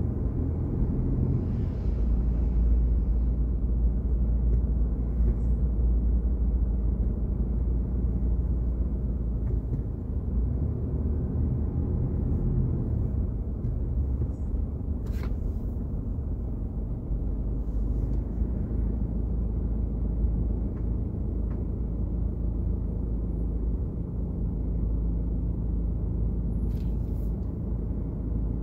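Steady low rumble of city street traffic, with a couple of faint short clicks.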